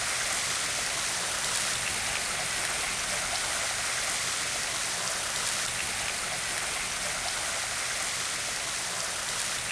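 Steady splashing of water falling into a stone fountain's basin.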